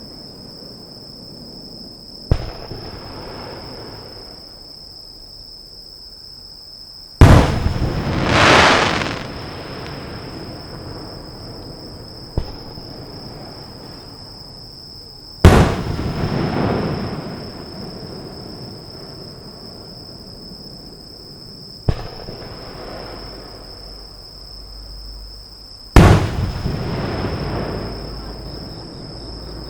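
Aerial fireworks shells bursting overhead: six sharp booms a few seconds apart. The three loudest, about a quarter, half and most of the way through, each trail off in a long rolling rumble and crackle lasting several seconds.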